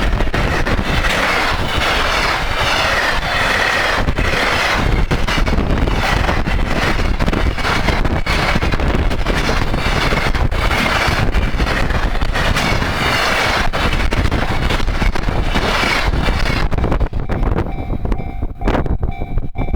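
A train passes over a railway level crossing for about seventeen seconds, a loud, steady rush of running noise with wheels knocking over the rail joints. Near the end the train noise dies down, and the crossing's warning bell shows through as steady tones.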